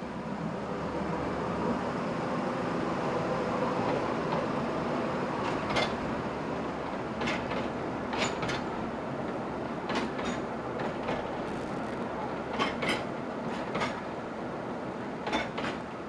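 Narrow-gauge forest railway train crossing a wooden trestle, its running noise building over the first few seconds. Then the passenger cars' wheels click over the rail joints, mostly in quick pairs, every second or two.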